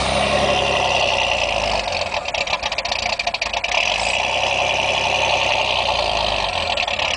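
1987 Pontiac Fiero GT's 2.8-litre V6 idling roughly on a cold start, the idle swelling and sagging every few seconds and sounding ragged when it dips. A faint high-pitched whine runs over it, which the owner takes for the intake.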